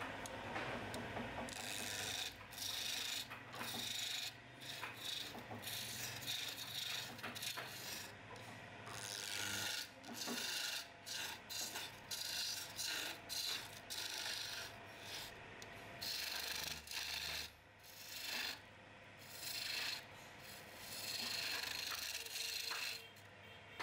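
Turning chisel cutting a wooden table-leg spindle spinning on a wood lathe: a run of short scraping cuts, one after another with brief pauses, over the lathe's steady low motor hum.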